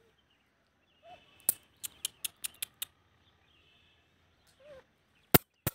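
Two faint short puppy whimpers, one about a second in and one near the end, with a quick run of sharp clicks, about five a second, between them and two loud clicks just before the end.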